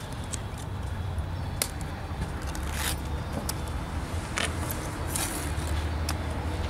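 A steady low vehicle rumble, with a few short scrapes and rustles from gloved hands feeding rebar tie wire through the filter mat and the storm-drain grate.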